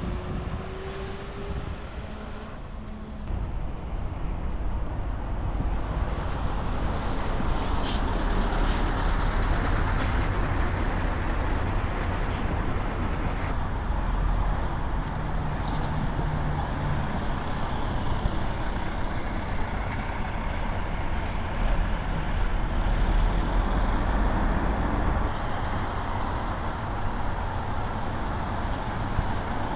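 Diesel bus engines running at low speed. A large coach pulls slowly across a bus terminal and passes close by with a steady low rumble, louder from about three seconds in. A brief hiss of air comes around the middle.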